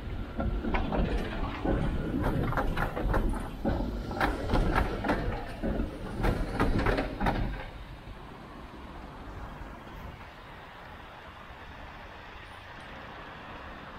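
Tram passing, with a low rumble and wheels clattering in irregular knocks over rail joints and points; it drops away suddenly about seven and a half seconds in, leaving steady street background.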